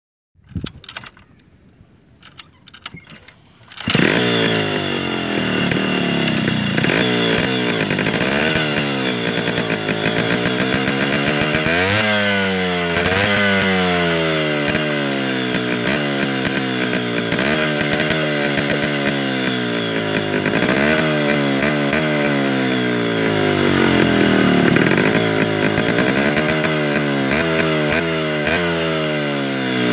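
Yamaha RX 100's two-stroke single-cylinder engine, coming in loudly about four seconds in and then revved over and over, its pitch repeatedly rising and falling back.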